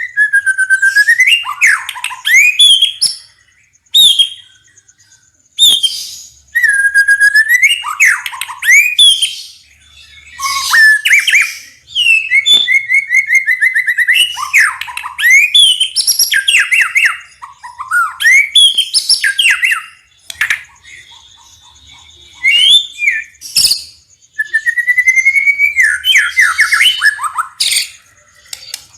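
White-rumped shama (murai batu) singing: loud phrases of sliding whistled notes and quick runs of rapid notes, separated by short pauses, with a longer pause about two-thirds of the way through.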